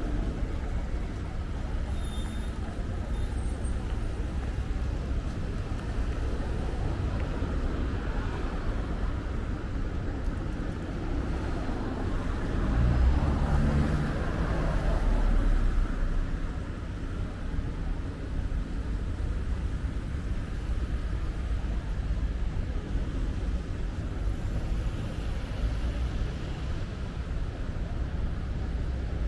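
Steady city road-traffic noise, with a louder vehicle passing close by about halfway through.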